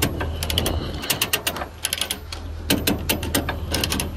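Ratchet chain binder being cranked to tighten a load chain, its pawl clicking in quick runs stroke after stroke, over a steady low hum.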